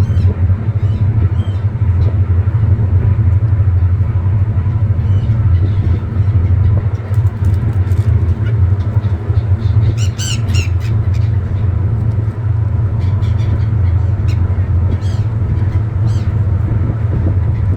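Gulls calling, with a quick run of sharp calls about ten seconds in, over a loud steady low rumble.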